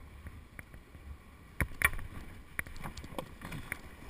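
A kayak and its paddle knocking and clattering at the water's edge: about five sharp knocks, the two loudest close together about a second and a half in, over a low wind rumble on the microphone.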